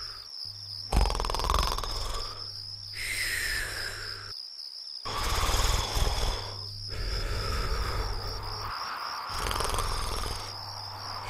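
Cartoon snoring: rasping snores repeating about every two seconds, some ending in a whistle that falls in pitch, over a steady high warbling trill.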